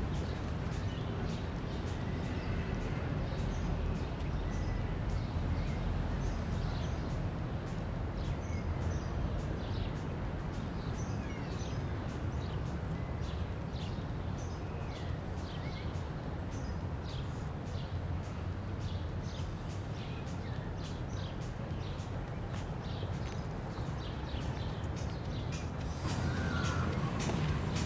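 Outdoor ambience: a steady low rumble with footsteps on a paved path and scattered short bird calls. It grows louder near the end.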